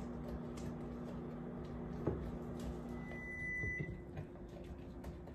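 Microwave oven running with a steady hum that stops about three and a half seconds in, with a single long beep as the cooking time ends. A spoon clicks and scrapes against a glass measuring cup as frosting is stirred.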